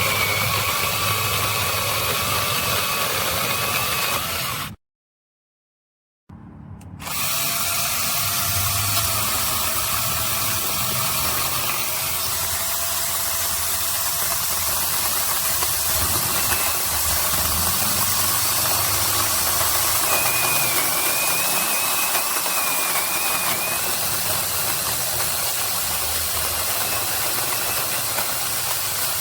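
Cordless handheld mini chainsaw running and cutting wood: a steady electric motor whine over the rattle and hiss of the chain, its pitch shifting as it works. The sound drops out completely for about a second and a half about five seconds in.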